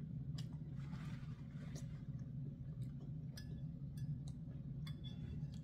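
Close-up eating sounds: chewing, with light clicks of a metal fork against a plate, over a steady low room hum.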